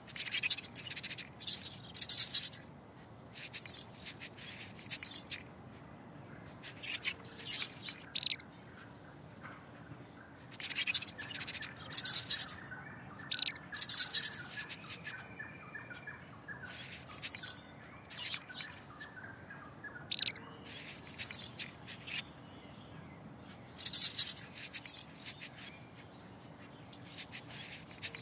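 Mouse squeaks: clusters of quick, high-pitched chirping squeaks, each cluster about a second long, repeating every second or two.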